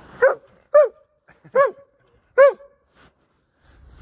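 Dog barking four times in quick, uneven succession, each a short, high bark.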